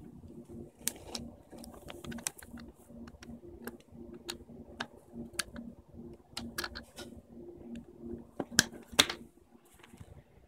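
Irregular clicks and taps of handling, from fingers on a clear plastic Raspberry Pi case and the phone held against it, with two sharper clicks near the end, over a faint low hum.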